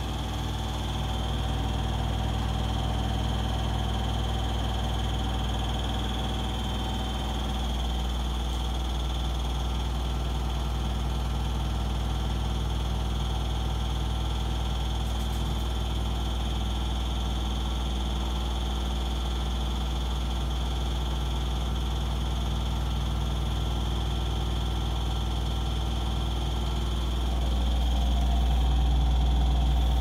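Hoover DXOAG48AHC-84 front-loading washing machine in its 1400 rpm spin cycle, running with a steady deep hum and vibrating very strongly, slightly louder near the end. The spin is hard enough to shake the machine and make it walk across the floor.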